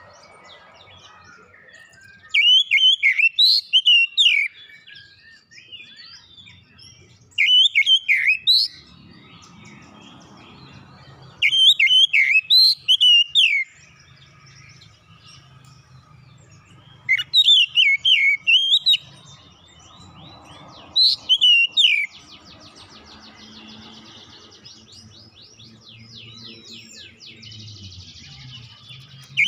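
Oriental magpie-robin singing: five loud phrases of quick, varied whistled notes, each under two seconds, with pauses of a few seconds between them, followed near the end by a quieter, fast run of notes.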